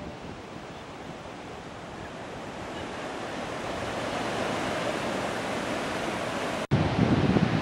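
Small ocean waves breaking and washing up a sandy beach: a steady surf hiss that grows gradually louder. Near the end the sound drops out for an instant, then wind rumbles on the microphone.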